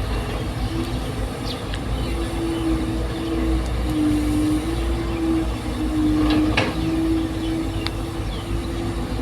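Excavator engine running, a steady low rumble with a wavering hum, with a few brief squeaks or clinks of metal about a second and a half in and again around six to eight seconds in.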